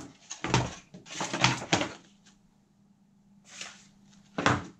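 Cardboard tablet box and its packaging tray being handled on a wooden table: a quick run of knocks and scrapes, a short pause, then a softer rustle and one sharp knock near the end.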